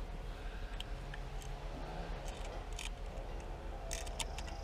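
Scattered light clicks and taps of a GFCI outlet and its stiff wires being pushed and fitted into a tight electrical box, with a small cluster of clicks near the end.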